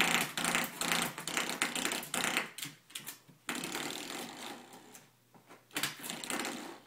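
Spring door stop twanged over and over by a puppy, a rattling, buzzing boing that comes in several bursts with short pauses between.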